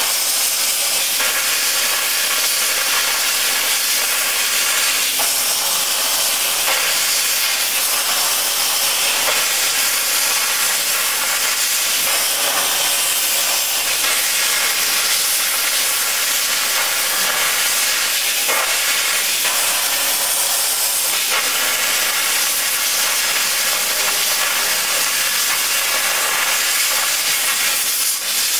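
Early-model Plas-Mate CNC plasma cutter's torch cutting metal plate: the plasma arc and its air jet give a loud, steady hiss, with a brief dip in level near the end.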